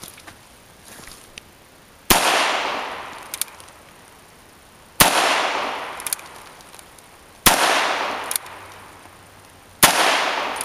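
Four gunshots about two and a half seconds apart, each with a long echoing tail.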